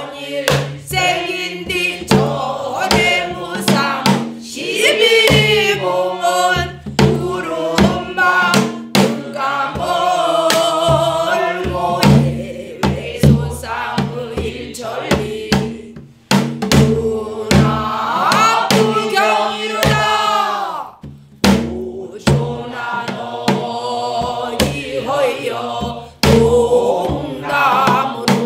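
A class singing pansori together in unison, with sharp strokes on buk barrel drums keeping the rhythm.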